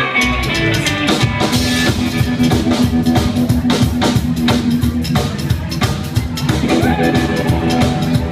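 Live rockabilly band playing an uptempo number: a steady drum-kit beat with electric guitar and upright double bass.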